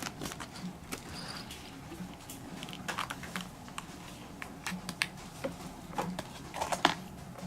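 Irregular light taps and short scratching rustles from a cat being brushed and resisting the brush, with a louder cluster of taps near the end.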